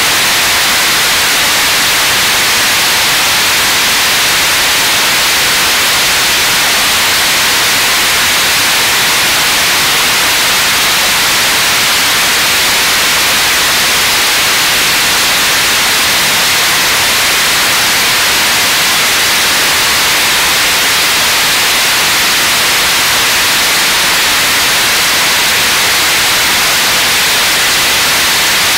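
Launcher E-1 3D-printed, regeneratively cooled rocket engine firing steadily in a long-duration hot-fire run: a loud, even rushing noise, heaviest in the upper register, with no change in pitch or level.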